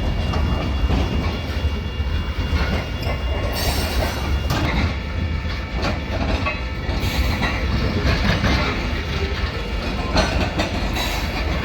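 Freight train cars rolling past at a grade crossing, with a steady low rumble and wheels clicking over the rail joints. A Safe Train electronic crossing bell rings along with it.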